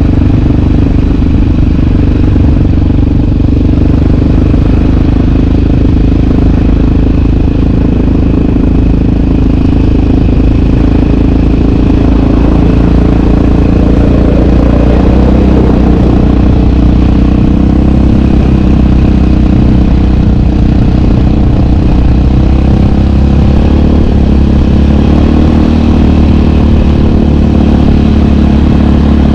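Single-cylinder four-stroke sport ATV engine running steadily without big revs.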